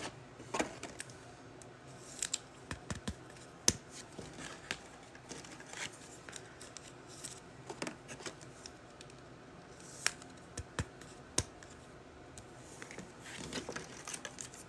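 Trading cards and foil pack wrappers being handled at close range: scattered sharp clicks, snaps and short crinkles as packs are opened and cards are sorted.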